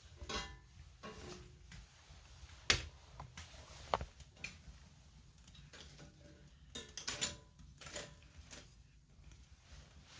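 Scattered clicks and knocks of things being handled, with two sharp knocks about 2.7 and 4 seconds in.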